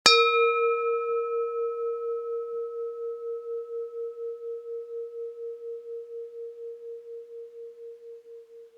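A bell struck once, its clear ringing tone fading slowly over about nine seconds with a steady wavering of about four pulses a second.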